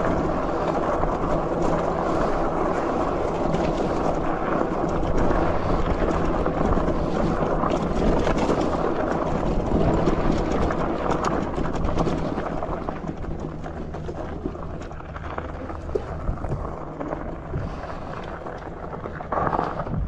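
Wind buffeting the handlebar-mounted microphone over the rumble of an e-bike's tyres on a dirt and gravel trail while riding. The noise eases off about two-thirds of the way through.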